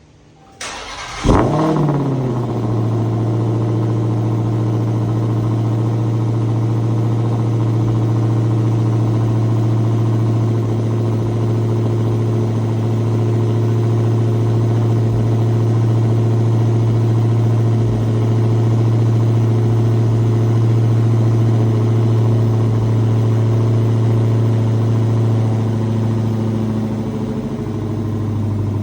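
Dodge Demon 170's supercharged 6.2-litre HEMI V8 cold-starting through the stock exhaust. It fires with a loud rev flare about a second in, then settles into a steady, loud high cold idle, dipping slightly near the end. The exhaust valves stay open while the engine is cold.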